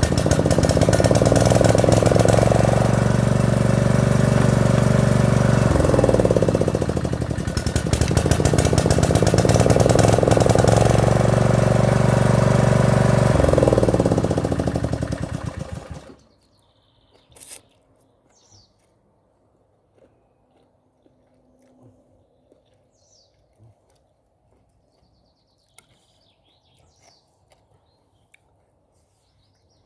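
Lawn mower's small petrol engine being test-run during repair: it runs loud, revs up and drops back twice, then shuts off about halfway through. Afterwards it is quiet, with a click and a few bird chirps.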